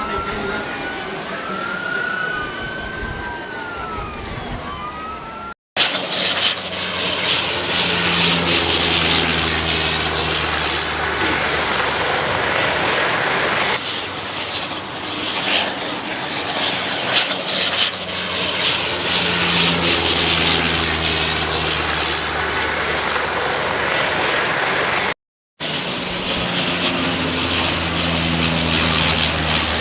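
Sirens wailing in rising and falling glides for the first few seconds. Then, after an abrupt cut, the twin turboprop engines of a Canadair CL-415 water bomber run loud and close: a steady propeller drone under heavy rushing noise. A second abrupt cut comes near the end.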